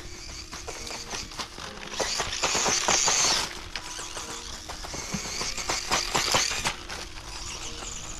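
A Tamiya Grasshopper 2 RC buggy with a brushed 28-turn motor is driving over rough, twiggy ground, with clattering knocks throughout. A louder rush of motor and tyre noise comes from about two to three and a half seconds in. Soft background music plays underneath.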